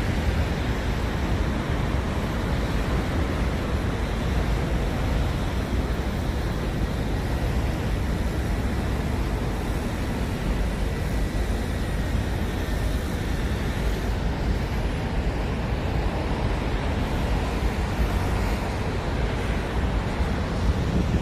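Steady rushing rumble of outdoor noise, heaviest in the low end, without a break or change.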